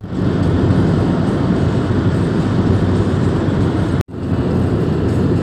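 Steady rumble of road and engine noise inside a car cruising on the highway. It drops out for an instant about four seconds in, then resumes.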